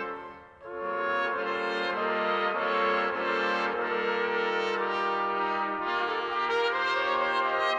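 Trumpet ensemble of six playing held chords. The sound drops away briefly about half a second in, then a new chord comes in and is sustained, its lowest note moving down in steps.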